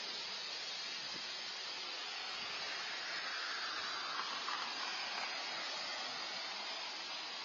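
Steady even hiss of background noise, swelling slightly near the middle.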